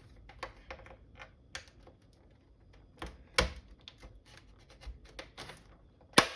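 Irregular plastic clicks and creaks as a monitor's snap-fit bezel is pried apart along its edge, with a louder click about three seconds in and a sharp snap near the end.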